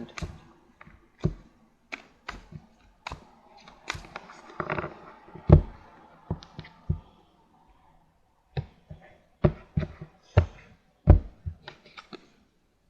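Irregular taps, clicks and knocks of a tarot deck being handled and shuffled on a table, with louder thumps about five and a half and eleven seconds in.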